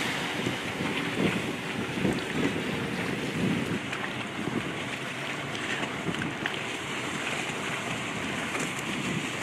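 Wind gusting on the microphone over choppy sea water: a steady rushing noise with uneven low rumbles from the gusts.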